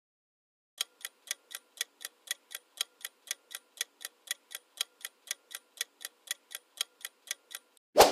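Clock-tick countdown timer sound effect, about four even ticks a second for roughly seven seconds, then a short loud swoosh as it ends.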